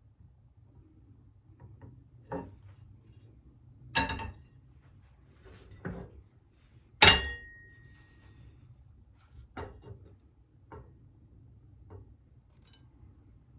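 Dishes and glassware being handled: a string of separate knocks and clinks, the loudest about seven seconds in ringing briefly like struck glass or china.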